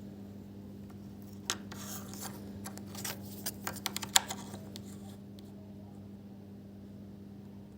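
A run of small irregular clicks and scrapes from hands handling the iMac's RAM modules and memory bay, loudest just after four seconds, over a steady low hum.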